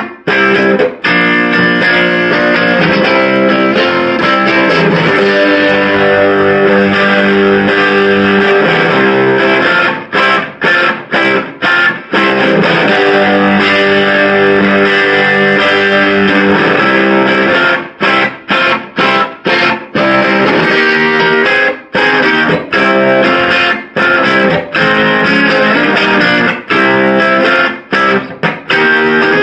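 1963 Hofner Galaxie electric guitar played through a 1968 Sound City Concord combo amp, strummed chords ringing out. In places the chords are broken into runs of short, choked stops: about a second in, again around a third of the way through, and through much of the last third.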